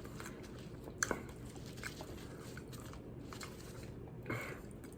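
A person chewing food close to the microphone: faint wet mouth clicks and smacks with light crunching, a sharper click about a second in.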